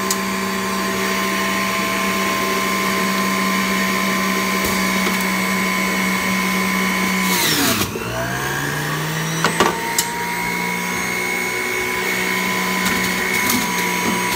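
Centrifugal juicer motor running with a steady whine. About seven and a half seconds in it bogs down sharply under load, then climbs back up to speed, with a few sharp clicks along the way. It bogs again right at the end.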